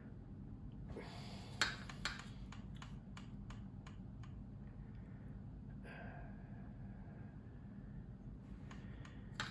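Fine paintbrush working oil paint over a plastic model's wing: a run of faint clicks and taps about a second in, lasting a few seconds, then more near the end, over a steady low hum. A single breath about six seconds in.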